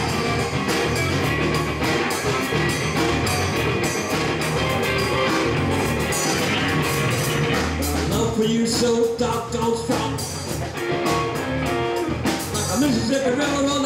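Live rock band playing: electric guitar and electric bass over a drum kit, in a steady groove.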